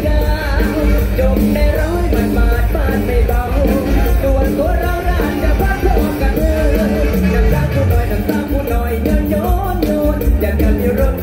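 Live mor lam band music played loud through a PA, with a male voice singing over a steady, heavy beat.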